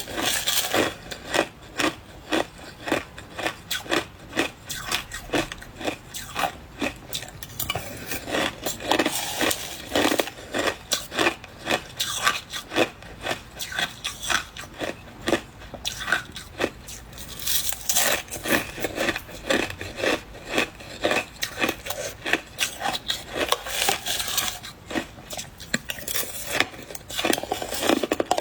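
Close-miked chewing of soft white ice (freezer frost or shaved ice): a quick, even run of crisp crunches, about two a second.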